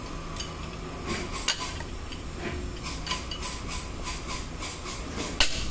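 Irregular metallic clicks and clinks of a socket wrench on a pickup's wheel lug nuts as they are loosened, several a second, with a sharper clack about five seconds in.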